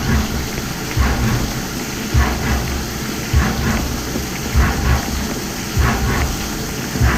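CNC milling machine running its program, with a low rumble and swish that swell and fade regularly about every second and a bit, as in repeated machining passes.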